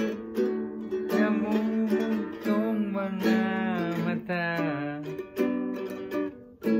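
A Yamaha GL1 guitalele, a small nylon-strung six-string guitar, strummed in chords, with a voice singing a melody along with it.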